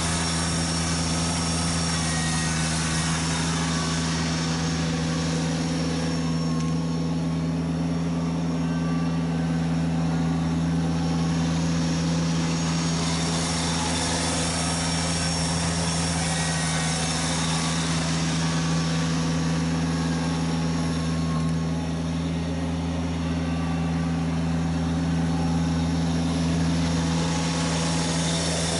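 Kubota BX1870 sub-compact tractor's three-cylinder diesel engine running at a steady speed close by.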